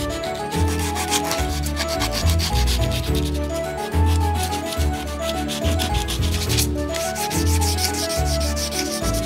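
Rapid back-and-forth hand sanding of rust spots on a valve radio's metal chassis, a fast scratchy rubbing, with background music carrying a bass line and melody underneath.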